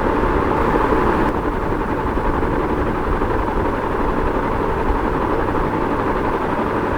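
Ceiling fan running: a steady, even rush of air noise with a low rumble beneath it.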